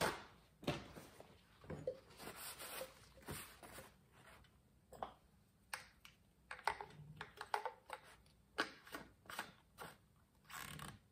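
Paper towel rustling as it is handled, then a run of short, irregular clicks, taps and rustles from hands working small plastic parts on top of a chainsaw powerhead.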